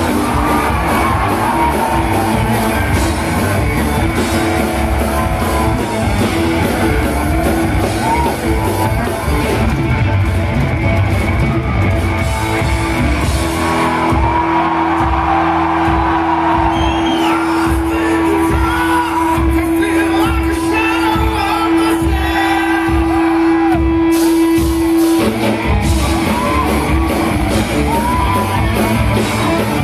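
Rock band playing live, heard from the audience in a hall: electric guitar, bass and drums, with a male lead vocal. A single note is held for about ten seconds in the middle.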